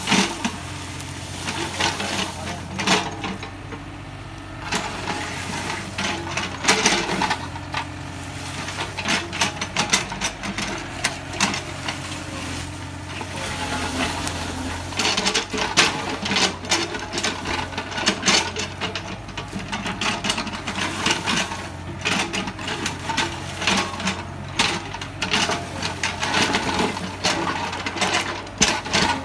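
Mini excavator's engine running steadily, with repeated scraping and clattering as the bucket digs into soil and dry leaf litter.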